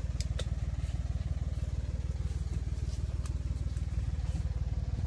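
Tractor engine running with its rope-type tree shaker, the Kadıoğlu Vibrope Master, shaking a walnut tree: a steady, fast, low pulsing, with a few faint ticks.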